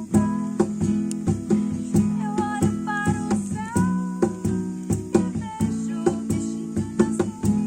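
Acoustic guitar strummed in a steady rhythm, with a gliding melody line above the chords.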